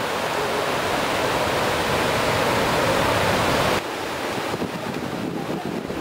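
Breaking ocean surf with wind buffeting the microphone: a steady rushing noise that drops suddenly in level about four seconds in.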